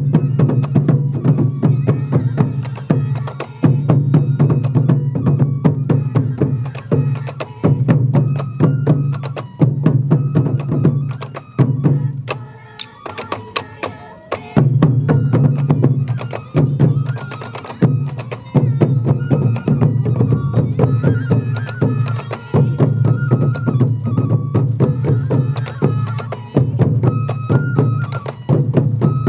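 Sansa odori festival music: taiko drums beaten in a fast, steady rhythm under a melody. The music thins briefly about twelve seconds in, then resumes.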